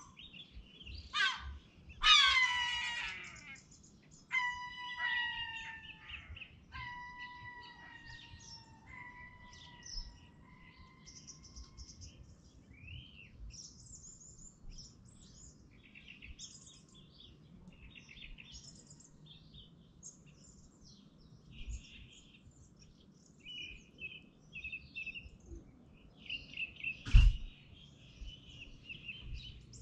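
Several birds singing and calling, with loud ringing calls early on, one call repeated about four times, then many quick high chirps. A single sharp knock near the end.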